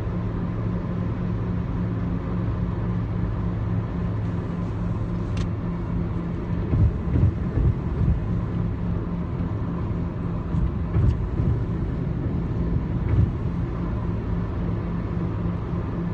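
Steady low rumble of a moving car's engine and tyres, heard inside the cabin, with a few brief low thumps in the middle.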